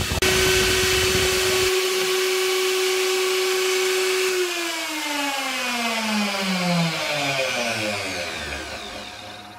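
CNC router spindle motor running with a steady high whine, then switched off about four seconds in, its pitch falling steadily as it spins down: the end of the cutting job.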